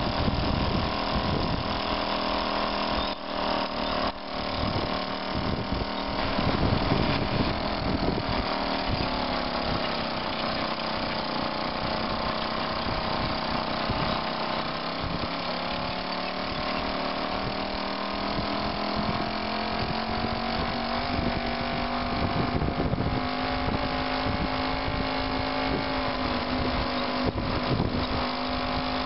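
VéloSoleX moped's single-cylinder two-stroke engine running steadily under way, its note sagging a little around the middle and then climbing slowly toward the end, with an irregular low rumble underneath.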